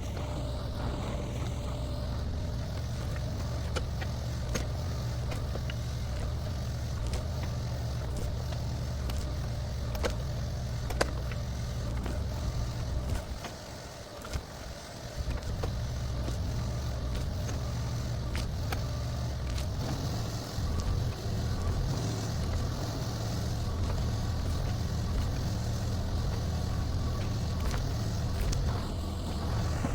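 Mini excavator engine running steadily, with a few sharp knocks about ten seconds in. The low engine sound drops away for a couple of seconds near the middle, then returns.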